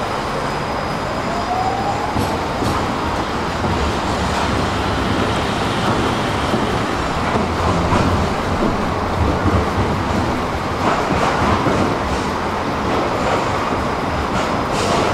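City tram running at a tram stop: steady rolling and running noise on street track, with a short rising whine about a second and a half in.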